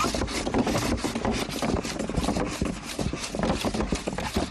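A sieve being pushed back and forth on its sieve frame to sift pounded earth, making a steady scratchy rasping of quick repeated strokes.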